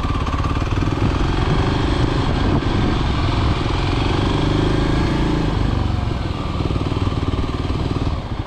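Kawasaki KLX300 dual-sport motorcycle's single-cylinder four-stroke engine running at low riding speed, heard close up from the rider's seat. Its pitch rises and eases a few times with the throttle.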